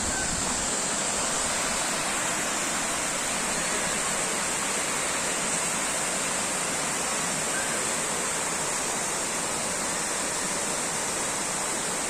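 Waterfall cascading down stepped rock ledges: a steady, unbroken rush of falling water.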